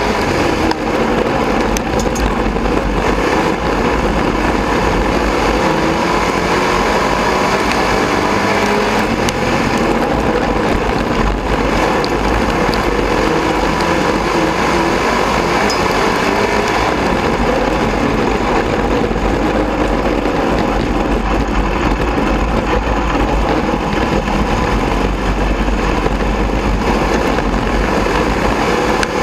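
Dirt-track sport modified race car engine running on the track, heard from a camera mounted inside the car as a loud, steady drone whose pitch wavers slightly, with other race cars' engines close by.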